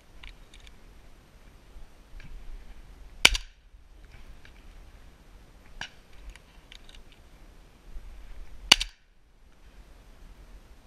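Two close shotgun shots fired at doves, about five and a half seconds apart, with a few faint ticks between them.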